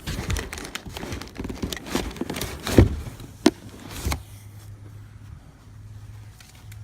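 Hands working at a truck's dashboard stereo: a run of clicks, knocks and rustling from the deck and its plugs for about four seconds, the loudest knock about three seconds in, then a steady low hum.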